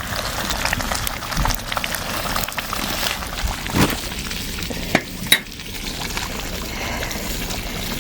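A spoon stirring and scraping in a pot of chili, with scattered clinks, the sharpest about four and five seconds in, over a steady sizzling hiss.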